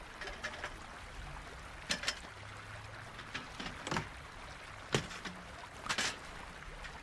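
A few sharp clicks and knocks as a portable gas stove's hard carry case is handled, unlatched and the stove set down on a slatted aluminium camp table. Under them runs the steady rush of a nearby stream.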